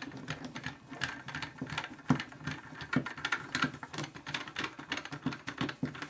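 Phillips screwdriver driving the retaining screw into the top of a chrome faucet handle: a run of small, irregular metal clicks and scrapes as the screw is turned down tight.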